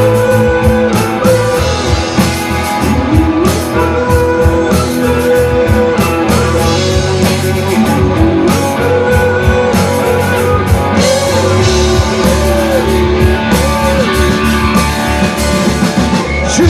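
Live rock band playing an instrumental break between sung lines: a guitar melody over steady bass and drum kit.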